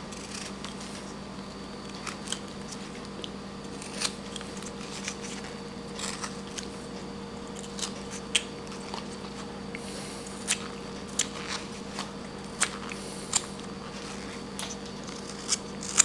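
Whittling knife taking small slicing cuts in a wooden Scotty dog figure: short, crisp cuts at irregular intervals of about a second or two. A steady low hum runs underneath.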